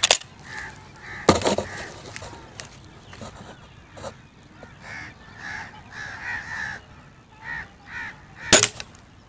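A spring-piston air rifle fires once near the end: a single sharp crack with a short ring, the loudest sound here. Before it, a couple of sharp clicks of the gun being handled, and birds calling repeatedly throughout.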